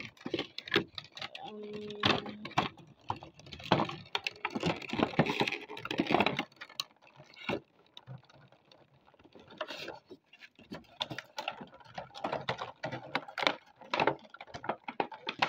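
Irregular plastic clicking and rattling as the interchangeable hands of a King Kong action figure are pulled off and pushed on, easing off for a couple of seconds midway.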